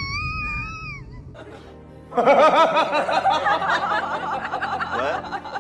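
A Shiba Inu's high wavering whine for about a second. After a short lull, laughter over background music.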